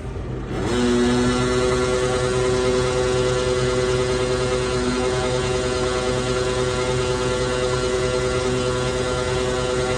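The engine and PTO-driven hydraulic pump of a 10-ton truck-mounted crane rev up about a second in as the winch is hauled up, then hold a steady, droning whine.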